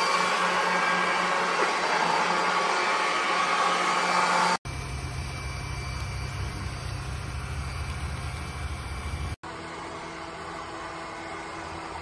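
DYNOVA JXV100 robot vacuum running, a steady whirring drone from its suction motor, in three clips cut together: the sound changes abruptly about every five seconds, loudest and hissiest first, then with a deeper hum, then quieter.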